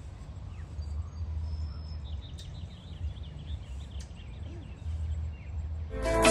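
Outdoor ambience: a steady low rumble with faint bird chirps, a quick run of chirps about two to three seconds in. Music starts abruptly near the end.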